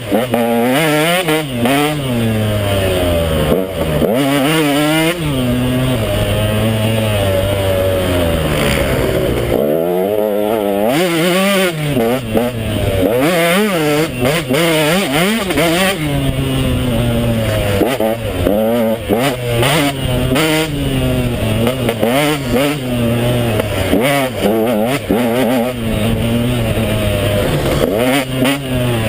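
KTM 150XC two-stroke dirt bike engine being ridden hard, its revs climbing and dropping back every second or two.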